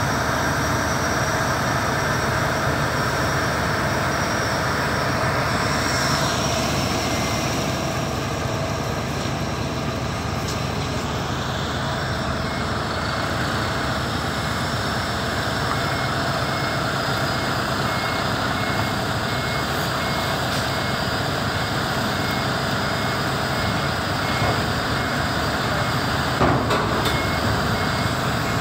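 Heavy diesel engines of the trucks and cranes running steadily. From about twelve seconds in, a truck's reversing beeper sounds a steady, evenly repeating high beep, and there is a single knock near the end.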